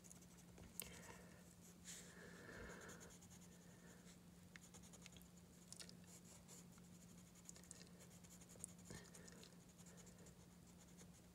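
Colored pencil shading on sketchbook paper: faint, short scratchy strokes, with a steady low hum underneath.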